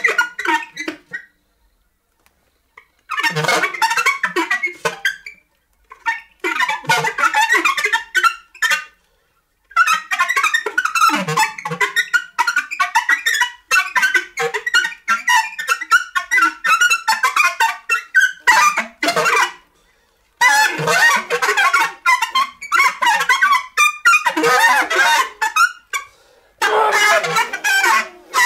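Free-improvised electroacoustic music: stuttering saxophone fragments, digitally chopped into dense showers of short slivers. The clusters break off abruptly into dead silence about five times.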